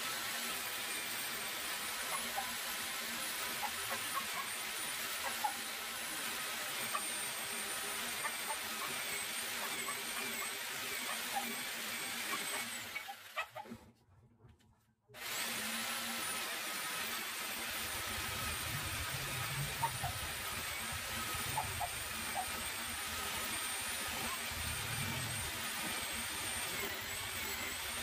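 Corded jigsaw cutting through a wooden plank, its motor whine wavering as the blade works the wood. The saw stops for about two seconds midway, then starts again and carries on cutting.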